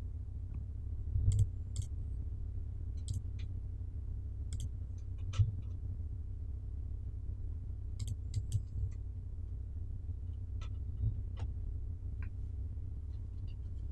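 Computer mouse clicking about ten times at uneven intervals, over a steady low hum.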